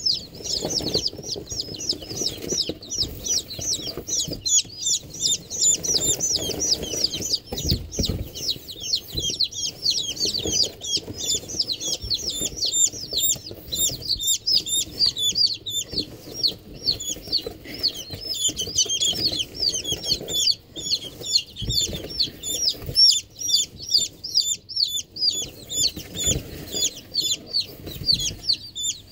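A group of baby bantam chicks peeping continuously, a dense stream of short, high, downward-sliding peeps many times a second. Lower rustling and bumps come and go underneath.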